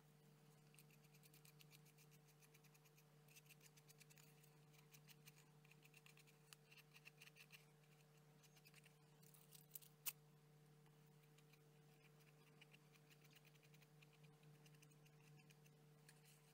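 Near silence: faint, quick scratchy strokes of a paintbrush spreading decopatch glue over paper on a cardboard model, mostly in the first half, over a steady low hum. One sharp click about ten seconds in.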